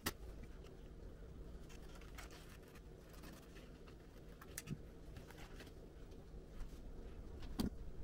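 Faint handling noises: a few light clicks and soft rustles of printed vinyl sticker sheet being fitted and trimmed on a computer case panel.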